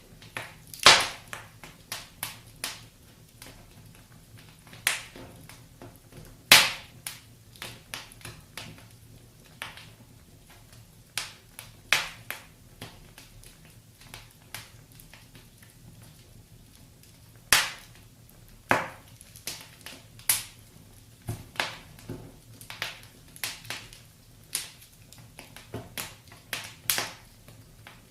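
Wood fire in a fireplace crackling, with sharp pops at irregular intervals over a faint low rumble.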